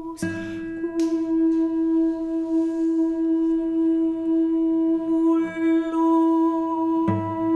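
A Helder tenor recorder holds one long, steady note while a classical guitar plucks a few scattered notes and chords: about a quarter second in, again at about one second and once more near the end.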